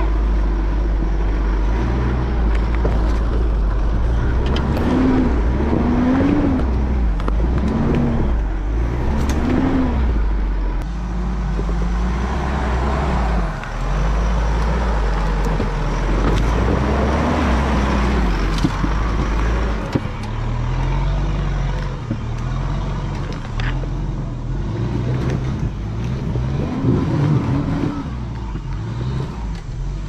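Mitsubishi Pajero Sport's diesel engine driving off-road under load, its revs rising and falling again and again as the throttle is worked over a steady low rumble. An occasional sharp knock comes through.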